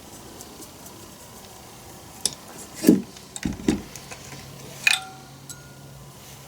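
A few light knocks and clicks of small metal parts being handled, the last one, about five seconds in, ringing briefly like a metal clink.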